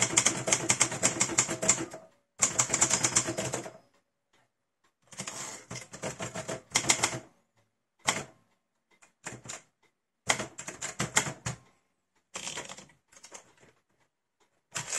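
1948 Hermes 2000 manual portable typewriter being typed on: rapid clacking keystrokes in runs of one to two seconds, broken by short pauses.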